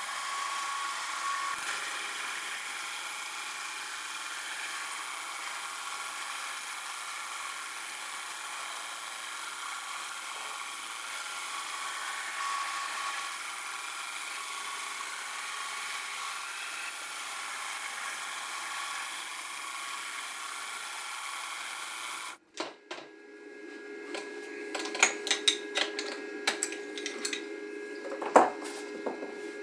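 Mini milling machine's spindle running and a small end mill cutting slots in aluminium plate under CNC control: a steady mix of motor whine and cutting hiss. About 22 seconds in it gives way to a steady hum with a run of sharp clicks and clatters.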